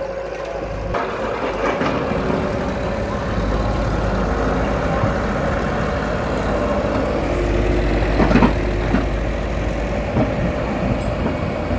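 Kato HD450SEV excavator's diesel engine running steadily, with a short loud knock about eight and a half seconds in.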